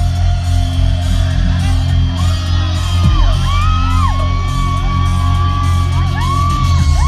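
Live concert music through a PA with a heavy, steady bass, and crowd members whooping and screaming over it from about midway.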